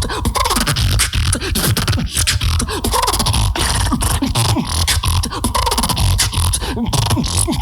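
Beatboxer performing a battle routine: a fast, dense pattern of mouth-made kick drums, clicks and snares over deep bass, with short falling pitched sweeps.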